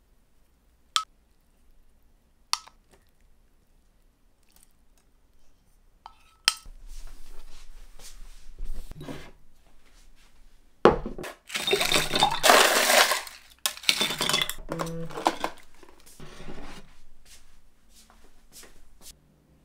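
Tableware being handled: a few sharp clinks, then a stretch of rustling, scattering noise, then metal cutlery knocking and clinking against a ceramic plate near the end.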